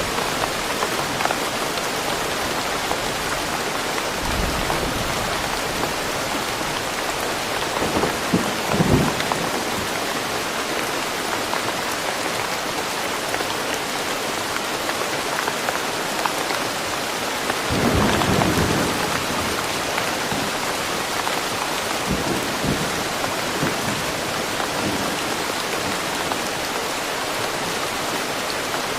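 Steady rain falling in woodland, an even hiss throughout, with a few short louder low bursts, strongest about 8 and 18 seconds in.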